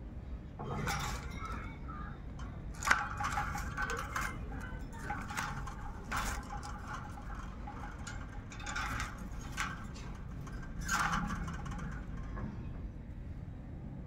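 Rose-ringed parakeet in a wire cage making scattered short, sharp clicks and rasps, about eight of them, the loudest about three seconds in, over a steady low outdoor background.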